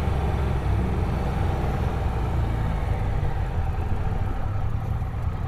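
Triumph Trophy motorcycle's engine running steadily at low revs.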